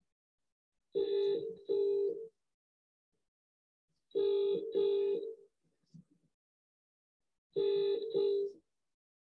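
Telephone ringing tone over the line while the call waits in a queue: a double ring, two short tones close together, heard three times about every three seconds with silence between.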